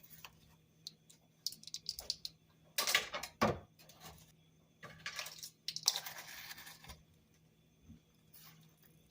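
A spoon clinking and scraping in a container while scooping dry vegetable bouillon powder, with light taps and a louder clatter about three seconds in.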